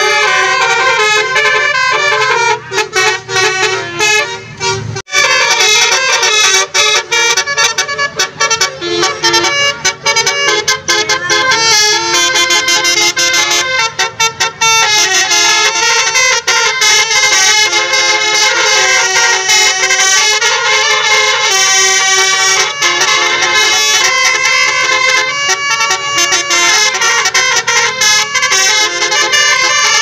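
Basuri musical air horns on tour buses playing a fast melody of stepped notes, the 'telolet' horn tune, loud and without pause apart from a sudden break about five seconds in.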